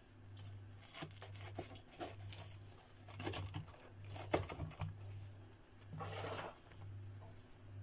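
Knife cutting through the crisp, charred crust of a vegetable-stuffed flatbread on a wooden board: a run of crackles and crunches, then a short rustle about six seconds in as a slice is pulled away.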